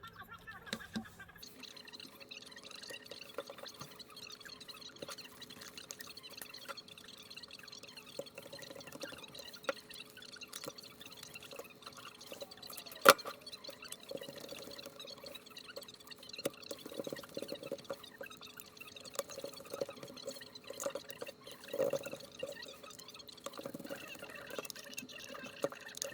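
Scattered small clicks and ticks with one sharp, loud click about halfway through, over a faint steady hum.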